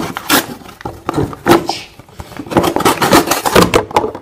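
Small kitchen knife sawing through an empty cardboard juice carton: irregular crackling, scraping cuts, a few spaced ones at first, then coming thick and fast in the second half.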